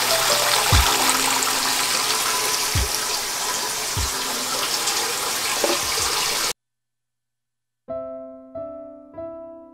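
Water rushing steadily, typical of a top-load washing machine filling, with a few dull low thumps; it cuts off abruptly about six and a half seconds in. After a second of silence, soft piano music begins.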